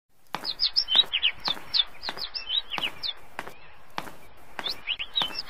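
Small birds chirping in quick short notes, over footsteps clicking on stone paving at a walking pace, about one and a half steps a second.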